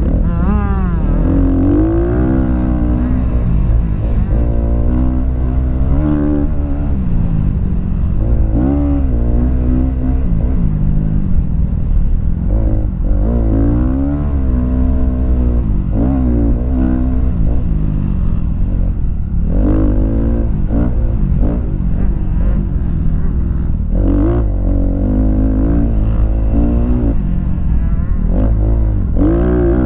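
Motocross dirt bike engine heard close up from on board, revving hard and falling back again and again as the rider accelerates out of turns, shifts and rolls off for corners and jumps.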